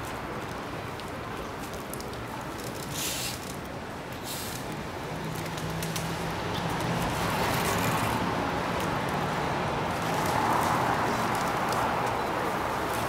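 Street traffic noise with a vehicle's low engine hum, swelling in the second half. Two brief hisses come about three and four seconds in.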